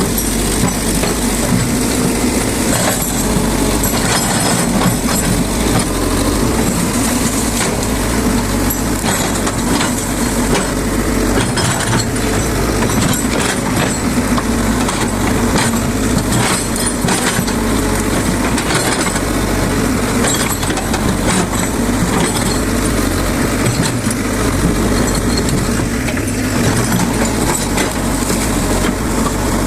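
Excavator's diesel engine running steadily under working load, with scattered cracks and snaps of branches and brush being broken and pulled.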